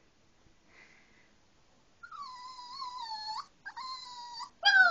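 Small dog whining in long, wavering, high-pitched notes, 'talking' on cue in answer to its owner. After a quiet start come one drawn-out whine, then a shorter one, then a louder third starting near the end.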